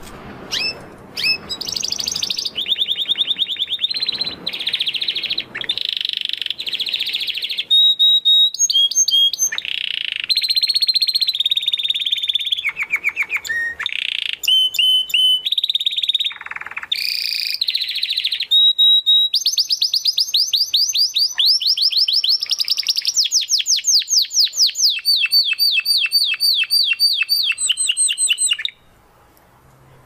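Domestic canary singing a long, varied song of rapid trills and repeated chirps, high and clear. The song cuts off suddenly near the end.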